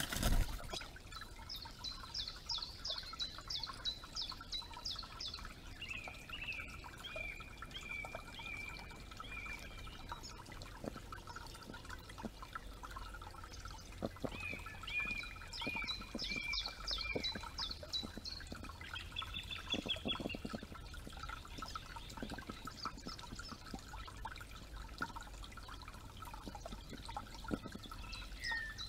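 Small birds singing in the woods, with bursts of rapid high trills and whistled phrases that come and go, over the steady trickle of a forest creek. A sharp knock sounds right at the start.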